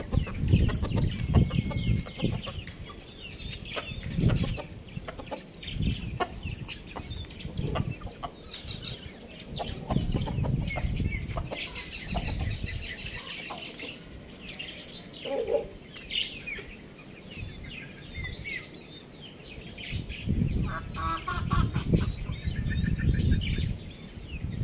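Chickens clucking in short scattered calls, one low call about halfway through and a quick rattling call a little later, with small birds chirping high in the background and low rumbling bursts on the microphone.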